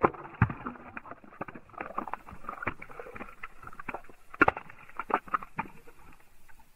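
A chicken egg cracking open on asphalt: a string of small, irregular cracks and clicks as the shell breaks and the egg spills. The sound is dull, and the loudest cracks come at the start and about four and a half seconds in.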